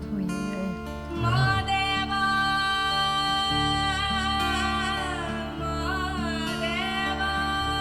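A female voice sings a Kannada devotional folk song in long, drawn-out notes with a wavering pitch, the first entering about a second in and another near the end, over steady instrumental accompaniment with plucked strings.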